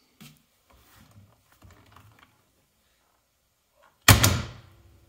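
Centre console armrest lid of a Mercedes R230 SL: faint handling sounds, then about four seconds in a loud, sharp double clack with a short ring-out as the lid's latch is worked and the lid is released open.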